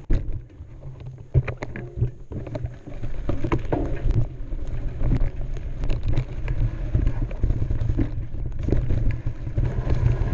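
Mountain bike riding down a rocky dirt singletrack: the tyres roll over dirt and rocks, and the bike knocks and rattles over the bumps. Under it runs a steady low rumble of wind on the microphone.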